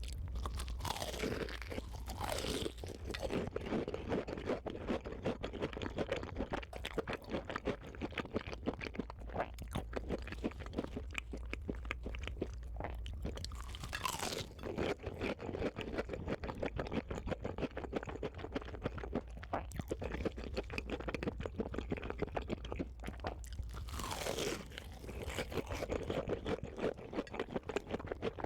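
Close-miked crunchy chewing, a dense run of rapid crunches throughout, with louder crunches about two seconds in, near the middle and near the end.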